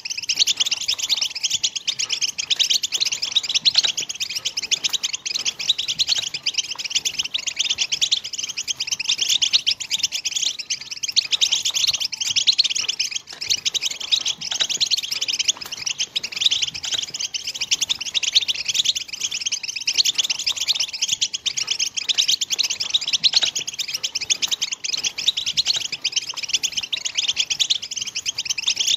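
European goldfinch song: rapid, continuous twittering and trills without a break, the breeding-season song used to stir other goldfinches into song and courtship.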